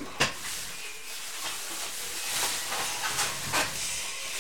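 Steady hiss with faint rustles and a few light taps, as a booklet trading card is handled and turned over.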